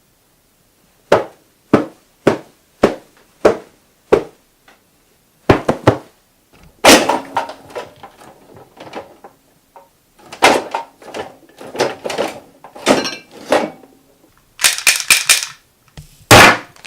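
Foley effects performed in a small studio: seven sharp thuds evenly spaced about every 0.6 s, then a pair of hits and longer stretches of scraping, rustling noise mixed with further sharp knocks.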